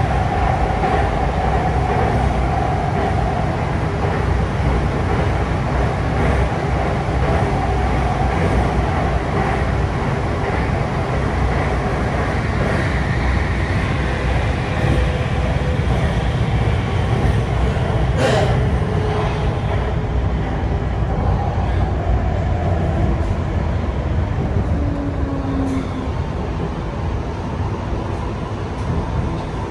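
Metro train running, heard from inside the passenger car: a steady, loud rumble of wheels and running gear with a faint whine above it. A single sharp click comes about 18 seconds in, and the noise eases a little near the end.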